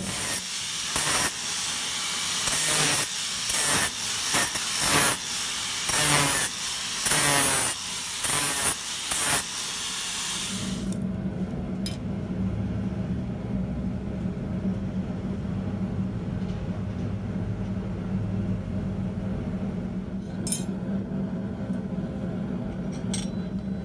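Angle grinder with an abrasive disc grinding metal in repeated short passes, throwing sparks, for about ten seconds before it stops. After that a steady low hum remains, with a few light metal clinks.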